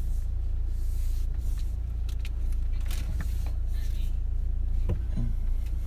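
Steady low rumble of a car's engine and road noise heard inside the cabin while driving, with a few faint clicks.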